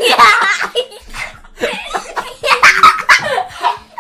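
A young man and a boy laughing hard, in two loud fits: one right at the start and a longer one in the second half.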